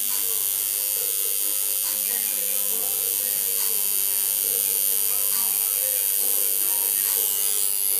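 Electric tattoo machine buzzing steadily as the needle works ink into the skin.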